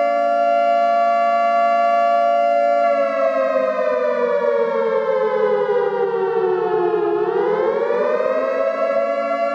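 Air raid siren wailing. It holds a steady tone, then its pitch slowly sinks for about four seconds and swoops back up to the steady tone near the end.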